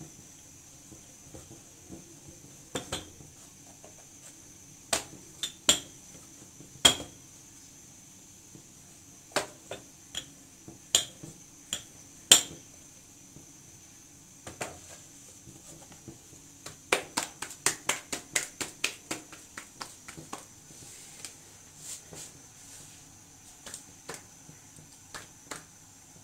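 Wooden rolling pin knocking and clacking against a plastic tray while chapati dough is rolled out: irregular sharp knocks, with a quick run of them a little past the middle.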